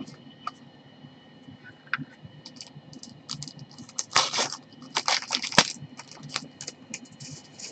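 Trading cards handled and set down on a desk by gloved hands: scattered light clicks and taps of card on card and desk, with two longer rustling spells about four and five seconds in.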